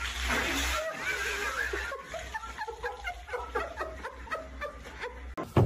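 Short, broken bursts of laughter running on for several seconds over a steady low hum, after a brief rush of noise at the start.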